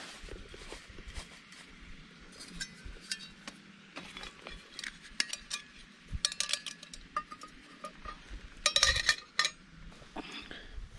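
Metal camp cookware being handled: a metal cup and a lidded pot clink and scrape as they are nested together, with a cluster of louder ringing clanks about nine seconds in.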